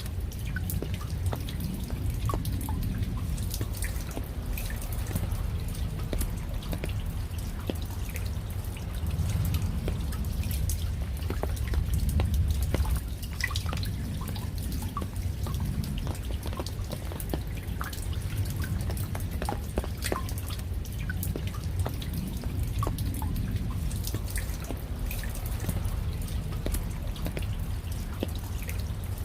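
Rain falling, heard as many scattered, separate drops hitting at irregular moments over a steady low rumble.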